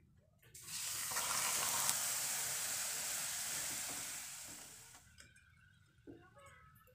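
Hot caramelized sugar in a non-stick pan hissing and sizzling loudly as liquid hits it. The sudden hiss dies away over a few seconds while it is stirred, leaving faint clicks.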